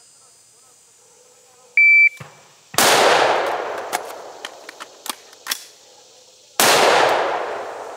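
Shot timer beeps once, then a rifle shot with a long echoing tail about a second later. A few light sharp clicks of a magazine change follow, then a second rifle shot about four seconds after the first.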